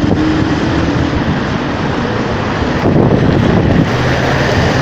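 Steady traffic noise under a road overpass, with a faint drawn-out metallic grinding tone mixed in, the kind of sound heard in Moscow and taken by some for a 'strange sky sound'.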